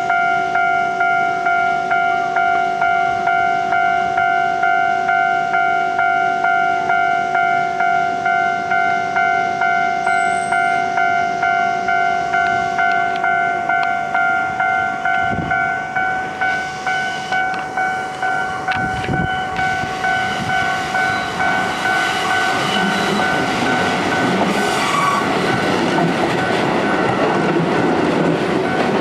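Japanese level crossing alarm bell ringing, a steady two-tone clang about twice a second. In the last third a Keio electric train runs past over the crossing and its noise takes over as the bell's strikes fade out.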